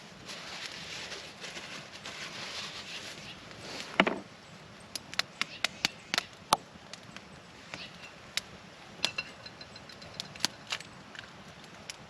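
A run of sharp, separate clicks and knocks, with one heavier thump about four seconds in and a faint rustling hiss before it.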